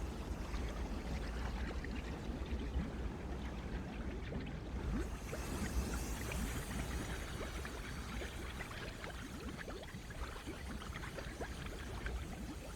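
Mud fumarole: thick mud bubbling and popping continuously over a low steady rumble, with a steam hiss that grows stronger about five seconds in.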